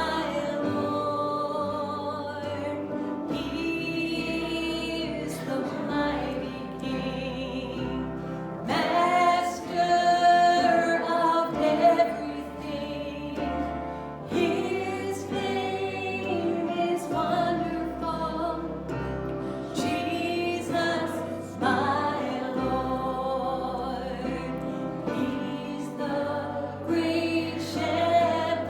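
Church worship music: voices singing over instrumental accompaniment, with low bass notes changing every couple of seconds.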